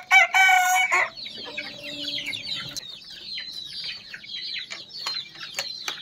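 A flock of local chickens in a coop: one loud pitched call about a second long just after the start, then many short high peeping and clucking calls from the birds. A few sharp clicks come near the end.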